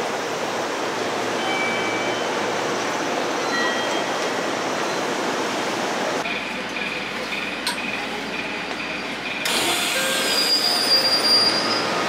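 JR Central 313 series electric train pulling into a station platform: a steady rush of running noise with a few brief high wheel squeals. About six seconds in, the sound changes abruptly to quieter platform sound with a steady high tone.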